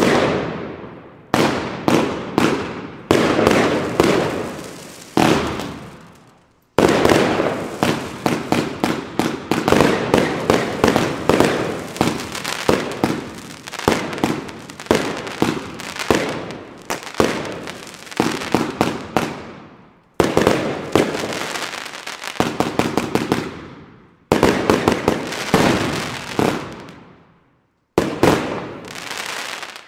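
Firework battery firing volleys of aerial shots that burst overhead with bangs and crackle. A few separate bursts come first, then a dense, rapid run of bangs from about seven seconds in to about twenty, then a few more separate volleys after brief pauses.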